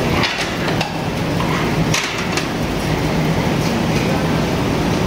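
Restaurant din: a steady low hum under dense noise, with a few sharp clinks and knocks of tableware.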